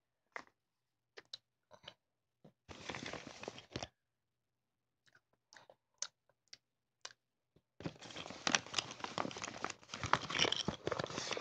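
Hands rummaging in crinkly packaging. There are scattered short rustles and taps, a longer crinkle about three seconds in, then continuous crinkling from about eight seconds in.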